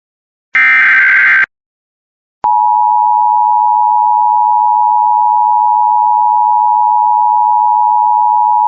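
Emergency Alert System activation tones. First comes the last of the repeated one-second screechy data bursts of the SAME header, the digital code that triggers the alert. After a short gap, the steady two-tone EAS attention signal begins about two and a half seconds in and holds unchanged.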